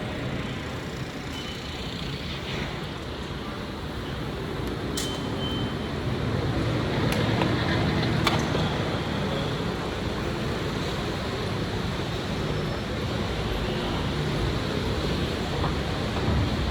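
Steady street traffic rumble in a snowstorm, with a couple of faint short high beeps and a few sharp clicks.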